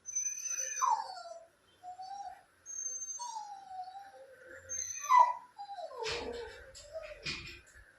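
Dog whining: a string of short, high whimpers that mostly fall in pitch, with a louder, rougher stretch near the end.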